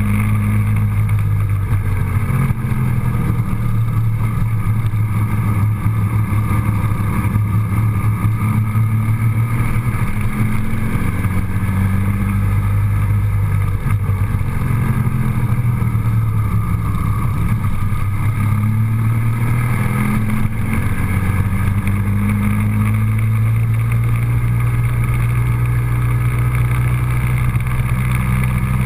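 Road vehicle driving with engine and road noise, the engine note dipping and rising several times as the speed changes.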